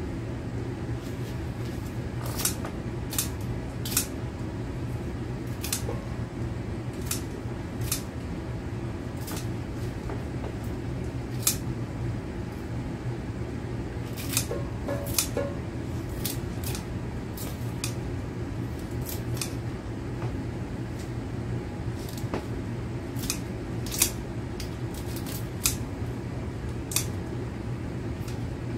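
Utility scissors snipping through kale and cabbage leaves: short, sharp snips at irregular intervals, roughly one every second, over a steady low hum.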